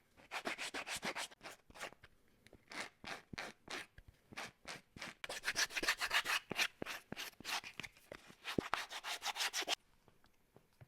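Sandpaper rubbed back and forth along the cut edges of leather pieces: quick, rhythmic scraping strokes, several a second, in short runs with brief pauses, stopping shortly before the end.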